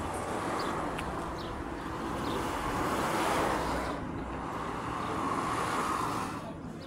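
Road traffic: cars passing on a highway, tyre and engine noise swelling twice, about three and about six seconds in, then dying away.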